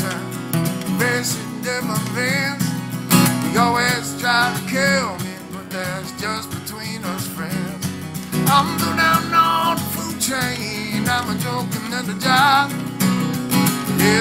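A man singing while strumming an acoustic guitar, a solo folk-blues song, with some held notes wavering near the end.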